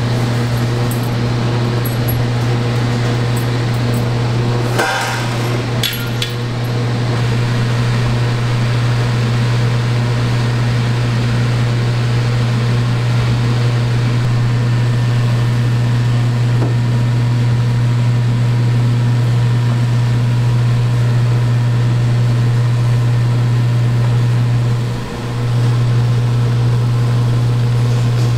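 Steady low mechanical hum of kitchen equipment, with a brief clatter about five seconds in; the hum dips for a moment near the end.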